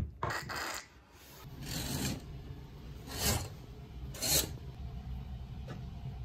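Four short rubbing, swishing strokes of handling noise: bedding rustling, then a curtain pushed aside and a hand wiping condensation off a fogged window pane, over a steady low rumble.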